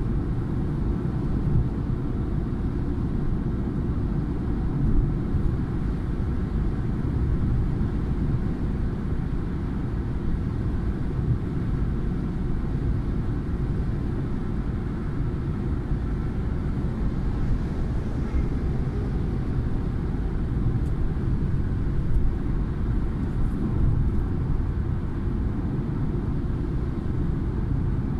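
Steady low rumble of a car cruising on a motorway, heard from inside the cabin: road and engine noise at an even level.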